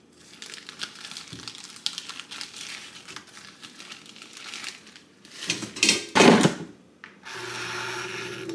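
Plastic food packaging crinkling as it is handled and opened, with two louder rustles a little past halfway. About seven seconds in, an air fryer starts and its fan runs with a steady hum.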